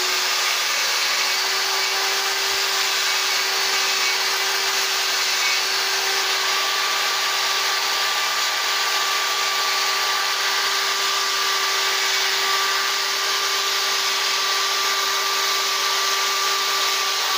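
Electric chainsaw running steadily at full speed, cutting hash-mark feather notches into a carved wooden owl; the motor comes up to speed right at the start.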